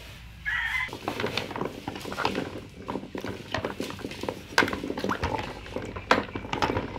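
Wooden stick stirring large blocks of ice in coconut water in a plastic basin: irregular knocks and clatter of ice and stick against each other and the basin, with the water sloshing. A chicken calls briefly about half a second in.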